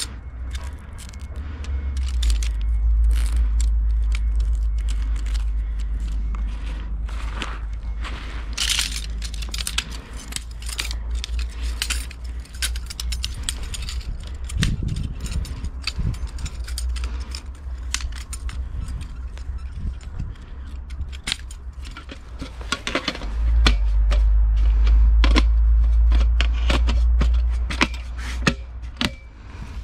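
Small metal camping gear being handled and set down: a run of clinks, clicks and light scrapes, over a low rumble that swells twice.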